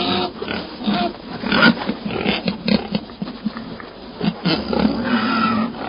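Recorded domestic pig grunting and oinking in quick, irregular snorts, played back as a pig sound clip. It is cut off above the upper treble and stops abruptly.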